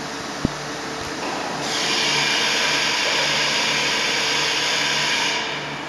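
SNK RB-4VN double-column machining center running with a steady hum and a sharp click about half a second in. A loud, high hissing whir then comes up about a second and a half in, holds for about four seconds and dies away near the end.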